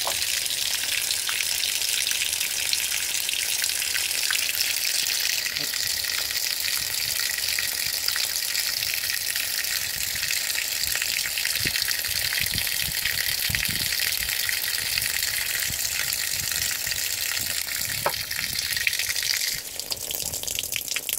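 Water pouring from the dispenser of a 2015 Whirlpool Cabrio top-load washer and splashing onto laundry in the drum, a steady hiss as the machine fills at the start of a deep-water cycle. The hiss drops somewhat shortly before the end.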